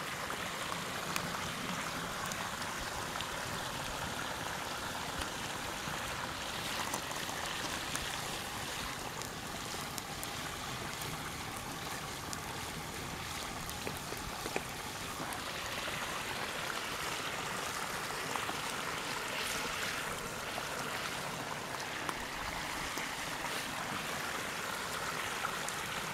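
A stream running steadily, with sharp crackles from the wood campfire now and then.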